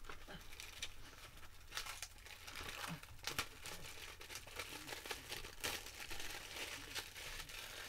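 Plastic shrink wrap being torn and peeled off a DVD case, crinkling in an irregular run of crackles with a few sharper snaps.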